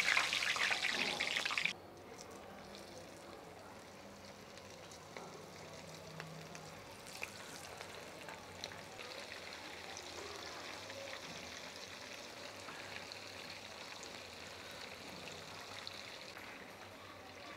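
Battered prawns deep-frying in a pan of oil: a faint, steady sizzle with scattered small pops and crackles, a little livelier in the second half. It opens with a louder hiss that cuts off abruptly under two seconds in.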